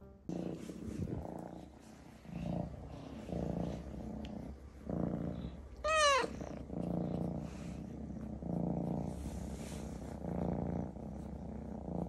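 Young cat purring while being stroked, the purr swelling and fading in waves about once a second, with one short meow about six seconds in.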